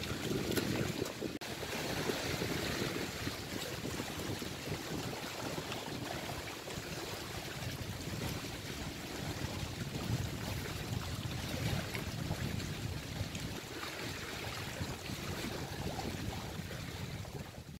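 Wind buffeting the microphone over small sea waves washing against a rock breakwater, a steady rushing noise.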